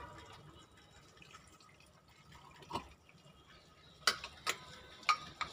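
Thin liquid poured faintly from one plastic bottle into another, thinning paint with spirit. Near the end come several sharp plastic clicks as the bottles and caps are handled.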